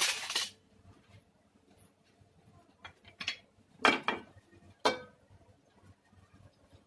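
A metal utensil clattering and scraping against a pan of hot oil with white sesame seeds in it: a loud clatter at the start, then three more about 3, 4 and 5 seconds in, each with a brief ring.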